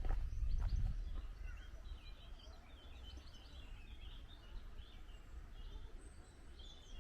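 Small birds twittering in a quick, continuous run of high chirps. Under it, wind buffets the microphone in a low rumble that is heaviest in the first second.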